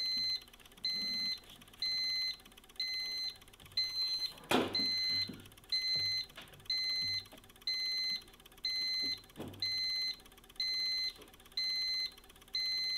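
Electric alarm horn beeping in a steady on-off pulse, about one half-second beep each second, switched by the PLC's pulse generator because the emergency stop has been pressed. A thump about four and a half seconds in, with a few lighter knocks later.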